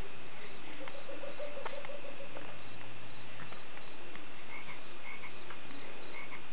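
Baby sucking her thumb: scattered wet sucking clicks, with a short rapid rattle about a second in, over a steady hiss.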